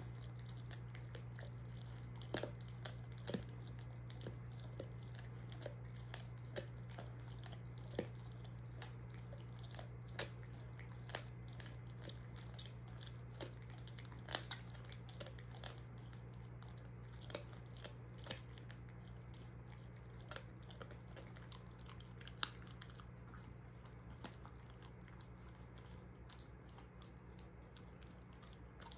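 German shorthaired pointer gnawing a beef soup bone with her back teeth: irregular crunches and cracks, a few a second at times, fewer over the last several seconds, with one louder crack near the end.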